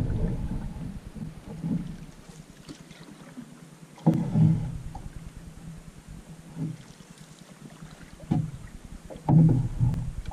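Canoe being paddled across a lake: paddle strokes and water slapping the hull come in short bursts every second or two, over a steady background of wind on the microphone.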